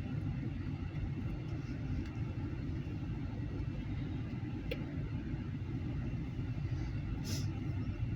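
Loaded OC&T grain hopper cars rolling past, their wheels giving a steady low rumble on the rails. There is a single sharp click about halfway through and a brief hiss near the end.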